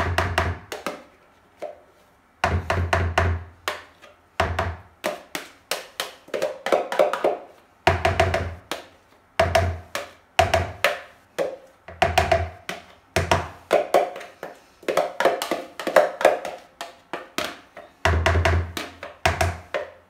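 Background music with a quick, busy percussion beat and deep drum thumps.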